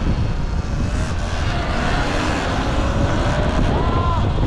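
Wind buffeting the microphone of an action camera on a moving Sur-Ron X electric dirt bike, with a steady rumble of road and traffic. A short rising tone comes near the end.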